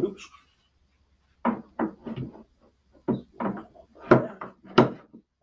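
Hollow plastic knocks and clunks as the cart's polyethylene legs are worked into the corner sockets of its plastic shelf: about ten short knocks in quick, uneven succession, starting about a second and a half in.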